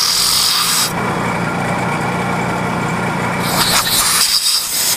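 Milling machine spindle running a 1/2 inch drill bit through stacked aluminum plates, a steady motor hum under a high, harsh cutting noise that is loudest for the first second and rises again briefly about three and a half seconds in.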